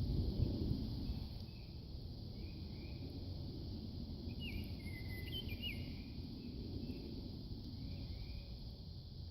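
Spring outdoor ambience: a steady high insect-like hiss over a low rumble that is strongest in the first second. Faint short chirps repeat in pairs every second or two, and a brief bird call with quick pitch jumps comes about halfway through.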